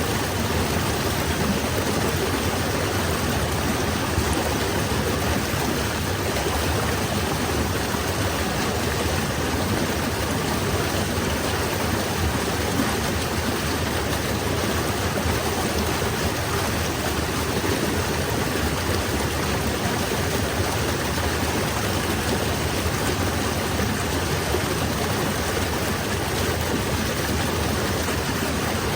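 Falling water rushing steadily, a dense, even hiss with no breaks or separate splashes.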